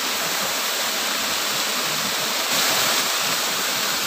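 Water pouring from a fish pond's drain outflow into the pool below: a steady rushing splash that holds at one level throughout.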